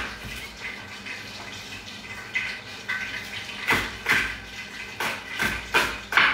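Chef's knife chopping a spring onion on a wooden cutting board: light cuts for the first few seconds, then firmer strokes about twice a second.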